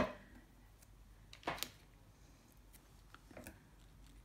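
Handling of a paper sticker on a planner page: a sharp tap at the start, a short rustle about a second and a half in and a fainter one near the end, as the sticker is peeled and pressed down by hand.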